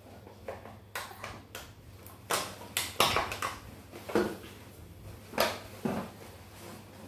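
A series of short, irregular knocks and clatters, about seven in all, loudest around three seconds in, over a faint steady hum.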